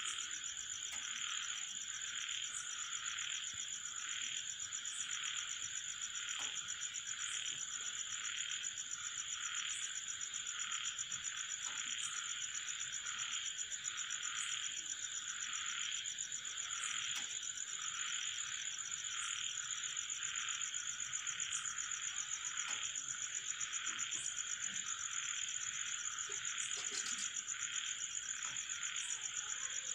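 Steady chorus of calling frogs and insects: a fast pulsing trill overlaid with a continuous high-pitched buzz, and a faint tick about every two seconds.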